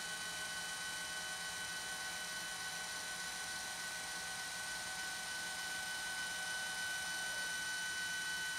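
Losmandy GM811G equatorial mount's drive motors whining as the mount slews, a steady high-pitched whine with one strong tone over a light hiss.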